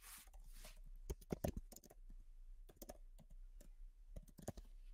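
Typing on a computer keyboard: faint, irregular key clicks as a line of code is typed. There is a short soft hiss in the first second.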